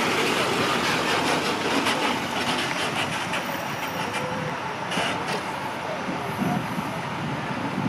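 Steady engine noise from an ambulance idling close by, with a few faint clicks through the middle.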